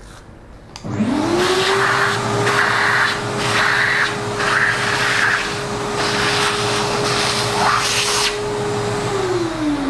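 A vacuum cleaner is switched on about a second in. Its motor whine climbs to a steady pitch, and the suction hiss rises and falls as the nozzle sucks coffee grounds off a flat coffee-grinder burr. Near the end it is switched off, and the motor pitch falls away as it winds down.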